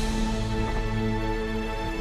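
Background music: soft, sustained chords of held tones.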